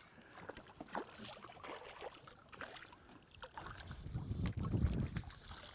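A hooked walleye splashing at the water's surface beside a small boat, with scattered small splashes and drips. A low rumble of wind on the microphone swells about four seconds in.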